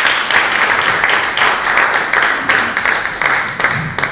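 Audience applauding: a dense patter of many hands clapping that begins to thin out near the end.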